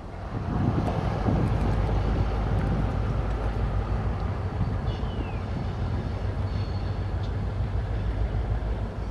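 Two diesel locomotives working hard as they pull a train of autorack cars, chugging with a deep steady rumble that swells about half a second in.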